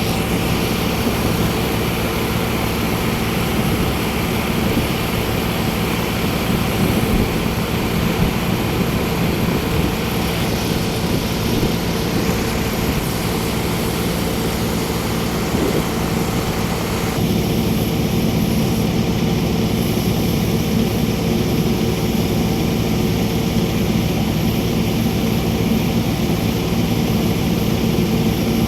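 An engine running steadily, a constant droning hum with a noisy hiss over it; the higher part of the sound drops away a little about 17 seconds in.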